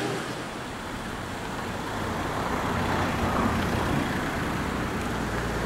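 A motor vehicle's engine coming closer, its low rumble growing louder near the end, over a steady rushing noise.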